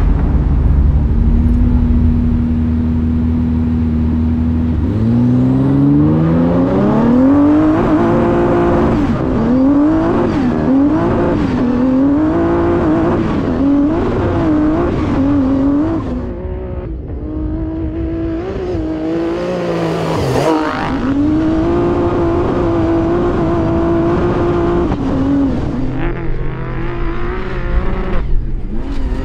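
Twin-turbo V6 trophy truck engine running steadily, then, about five seconds in, climbing in pitch as it accelerates hard. Its pitch then rises and falls repeatedly with gear changes and throttle lifts.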